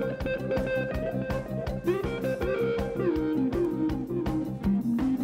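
Live rock band playing an instrumental passage: electric guitar, bass and drums, with a lead melody sliding and bending in pitch over a steady drum beat.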